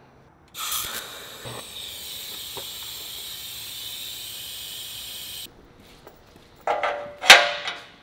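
TIG welding arc hissing steadily for about five seconds, starting abruptly about half a second in and cutting off suddenly. Near the end, two loud metallic knocks with a short ring.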